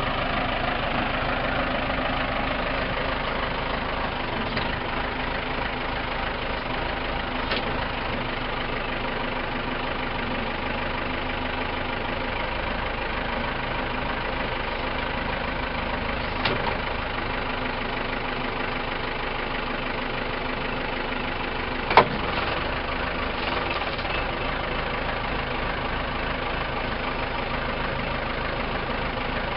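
Case 580M loader/backhoe's diesel engine idling steadily. One sharp knock stands out about three-quarters of the way through, with a few fainter clicks before and after it.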